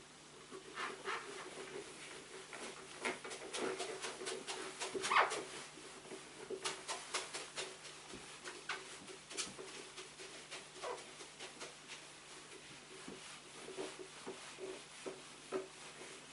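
Handheld whiteboard eraser wiping marker off a whiteboard: a run of short rubbing strokes with a few brief squeaks, busiest in the first ten seconds.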